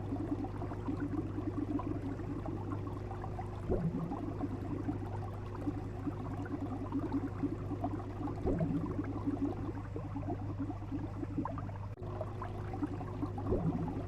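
Steady bubbling and gurgling of water over a low, constant hum, like an aquarium or underwater recording, with a short swell that returns about every five seconds.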